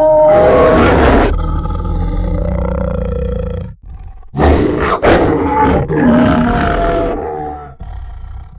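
Designed monster-wolf sound effect: two long, loud roars with a short break between them about four seconds in. A quieter tail follows near the end.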